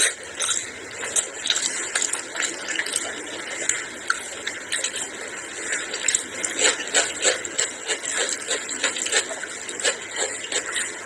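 Close-miked sounds of a person eating rice and curried chicken by hand: wet chewing and lip-smacking, with fingers squelching rice in gravy. The sound is a run of many irregular clicks and smacks.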